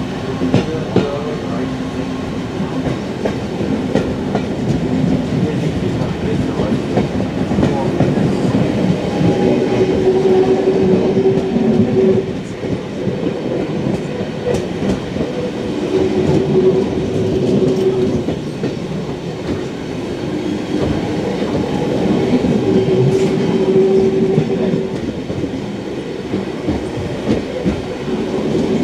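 Train hauled by a class 52 steam locomotive running along the track, a steady running noise. A held tone comes and goes several times.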